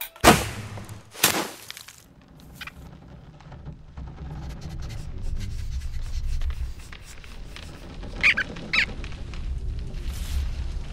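Cartoon sound effects: two sharp hits about a second apart, then a low rumble that slowly builds, with two short high squeaks from the rodents about eight seconds in.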